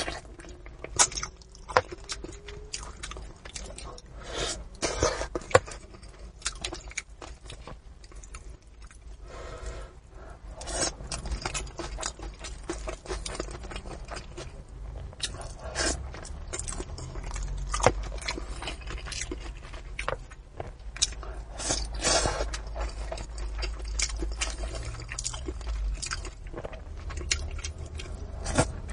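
Close-miked eating of braised fish: irregular chewing, smacking and small crunching clicks, with occasional scrapes.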